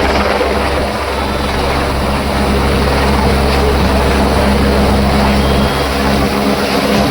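Helicopter flying low overhead, its rotor and engine running steadily and loud; the deepest part of the sound drops away a little before the end.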